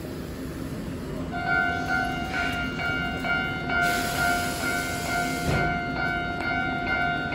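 A steady electronic buzzing tone at a tram platform, starting about a second in and cutting off suddenly near the end, like a departure buzzer sounding while the tram waits with its doors open.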